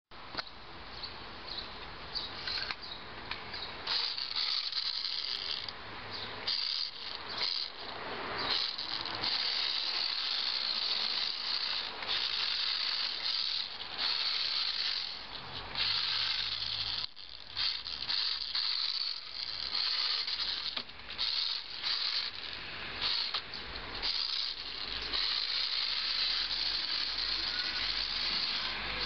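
Radio-controlled MIXR/C Ferrari F2005 model car's small electric motor and gearbox whirring with a ratcheting rattle, surging and dropping in irregular bursts with short pauses as the car drives and spins on wet tiles.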